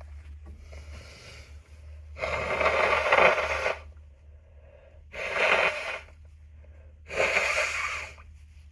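A person blowing their nose three times, each blow a rushing burst of air lasting about a second, the first the longest and loudest.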